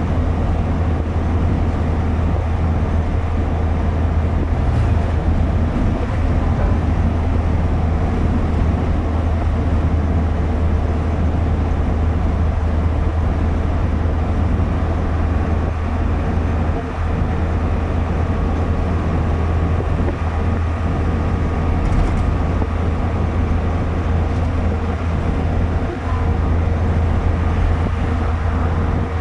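Car cruising at a steady speed, engine and tyre noise heard inside the cabin: a constant low drone with a steady hum above it.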